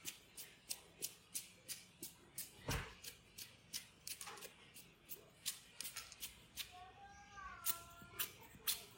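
Faint background music with a steady shaker-like beat, about three ticks a second. A short wavering tone comes in near the end.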